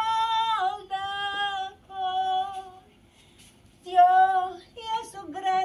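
A woman singing solo, holding long steady notes, with a pause of about a second a little past the middle before she sings on.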